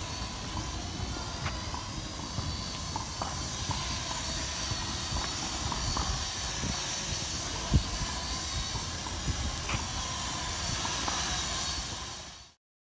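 Small beginner quadcopter drone hovering: a steady, hissy whir from its propellers with faint wavering high motor tones, and wind rumbling on the microphone. One louder knock comes about eight seconds in, and the sound cuts off suddenly near the end.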